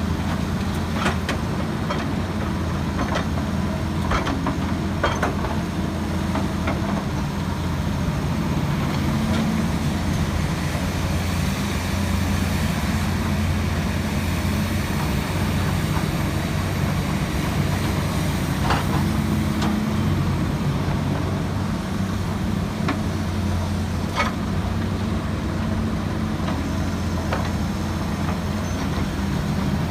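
Kobelco SK200 excavator's diesel engine running steadily under load while loading sand, with a few sharp knocks scattered through.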